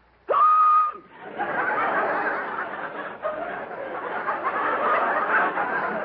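A man's loud comic hiccup, a short yelp that holds one pitch for about half a second. From about a second in, a studio audience laughs.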